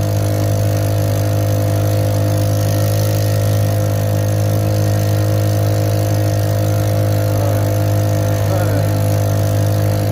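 Matsumoto 5 HP four-stroke outboard motor running steadily at a constant speed, with an even low hum.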